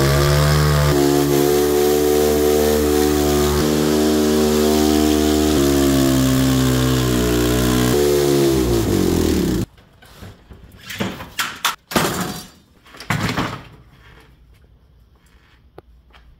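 A 250cc single-cylinder dirt-bike engine held at high revs with a rushing hiss over it, its note stepping slightly, then sagging and cutting out abruptly about ten seconds in. A few short knocks and clatters follow.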